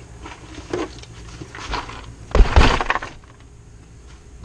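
A cooler and other gear being handled in a car's cargo area, heard from inside the cargo area. There are a few light knocks, then a loud clattering rattle with a thump a little past halfway.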